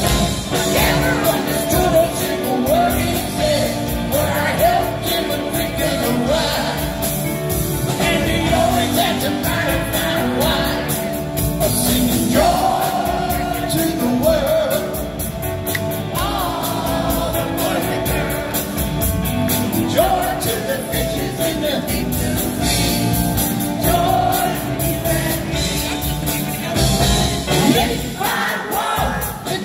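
Live rock band playing, with a male lead vocalist singing over drums and electric guitar.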